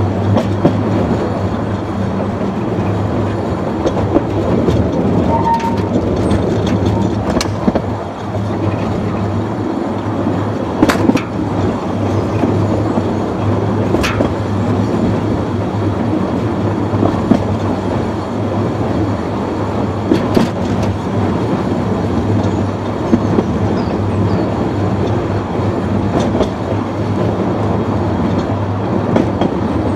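Narrow-gauge mine railway locomotive running light along the track: a steady low hum and rumble of the loco and its wheels on the rails, with a few sharp clicks now and then.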